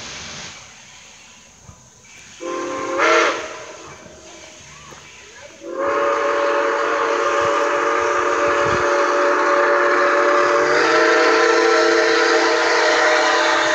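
Steam locomotive whistle sounding as the engine approaches: a short blast about two and a half seconds in, then a long steady blast of several notes at once from about six seconds in, which grows louder just before eleven seconds and holds.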